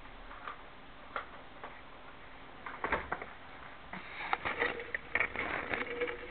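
Scattered faint clicks and rustles of handling noise on the toy helicopter's onboard camera microphone, becoming busier in the last couple of seconds as the helicopter is moved, with a faint steady hum under the final part.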